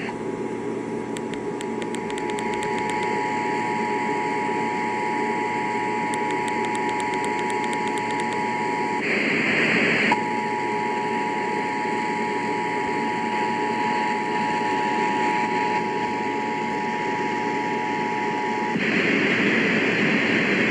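Emergency Alert System two-tone attention signal (853 and 960 Hz) received over AM radio, a steady dual tone over constant static hiss. It breaks off for about a second midway under a burst of hiss, resumes, and stops about 19 seconds in, leaving only the hiss.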